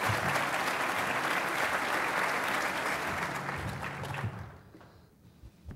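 Audience applauding; the clapping fades away about four seconds in.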